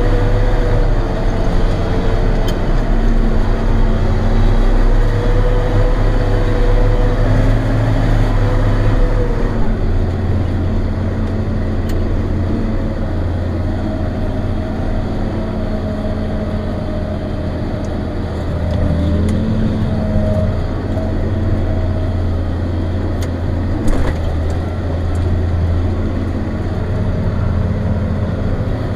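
John Deere 7800 tractor's six-cylinder turbodiesel engine running steadily under way, heard from inside the cab. Its low note shifts about ten seconds in, and there are a couple of faint clicks.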